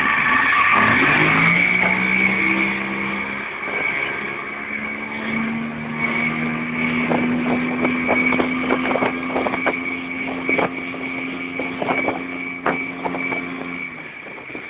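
Volvo Penta 700 70 hp two-stroke outboard opening up from low speed, its pitch climbing over about two seconds as the boat gets going, then running steady at high speed with scattered sharp knocks. The engine eases off near the end.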